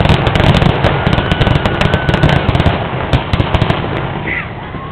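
Fireworks display going off loudly: a rapid, dense run of sharp bangs and crackling pops over a low rumble, thinning out near the end.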